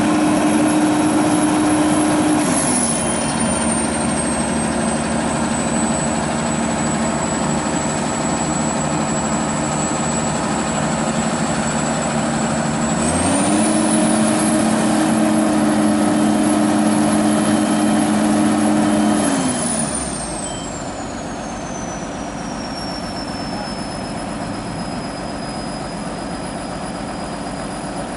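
Komatsu PC200 excavator's diesel engine running steadily, its pitch dropping about two and a half seconds in, rising again around thirteen seconds and falling back near twenty seconds as the revs change. A thin high whine rises and falls with the revs, and the sound gets quieter after the last drop.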